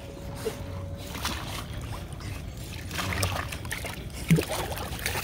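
Water sloshing and splashing against the side of a small boat as a dog paddles close alongside it, with scattered small splashes.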